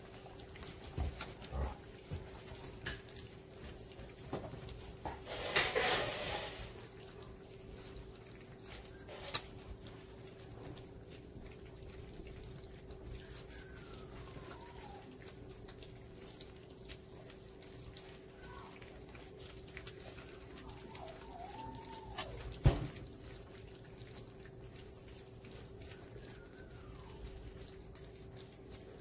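Golden retriever puppies eating mushy food from stainless steel saucer pans: scattered small clicks and clatter of mouths and paws in the pans, a few faint short whines, and one sharp knock about three quarters of the way through.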